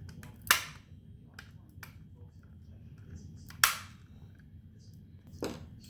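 Plastic housing pieces of a Toyota Sienna garage door opener console module snapping together by their tabs: two sharp, loud snaps about three seconds apart, with a few lighter plastic clicks between and a softer knock near the end.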